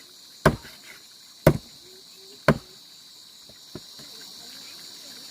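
A steady high-pitched insect chorus, typical of crickets, with three sharp knocks or chops about a second apart, then two faint ticks.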